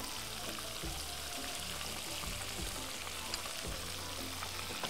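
Pieces of hammour (grouper) frying in hot oil in a pan, a steady sizzle with a few faint crackles.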